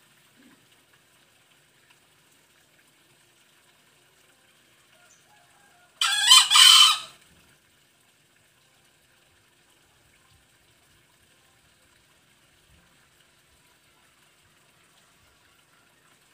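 Green junglefowl crowing once about six seconds in: a single short, shrill crow of about a second and a half, in two parts with the second louder.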